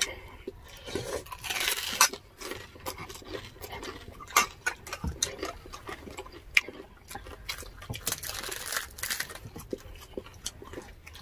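Crisp deep-fried pork knuckle skin being crunched and chewed, with scattered crackles and clicks. There are two longer stretches of crunching, one about two seconds in and one later on.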